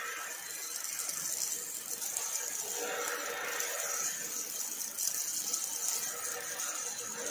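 Robotic MIG welding arc from an OTC welding robot, burning steadily with a crackling hiss.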